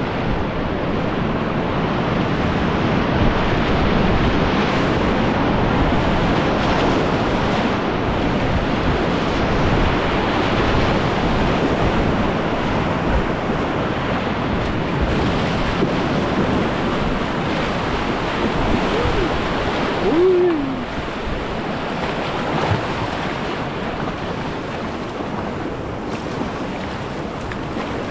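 Rushing whitewater of the Upper Gauley River: a steady, loud wash of moving water with wind buffeting the microphone. A brief falling tone stands out about two-thirds of the way through.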